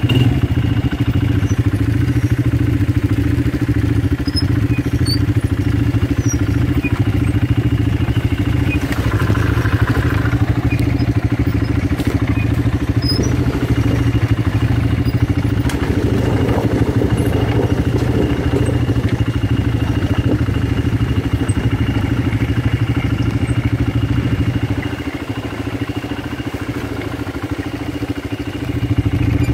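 Four-wheeler ATV engines running steadily while riding a rough dirt trail, heard from the rider's own quad, with some clatter. The engine note eases off for a few seconds near the end, then picks up again.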